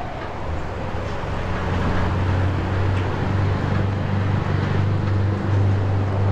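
Heavy Scania truck diesel engine running at a steady low speed, an even low hum with no revving.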